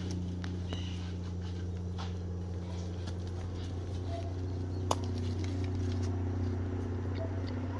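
A steady low motor hum, with a few faint clicks as a knife peels the charred skin from a roast breadfruit.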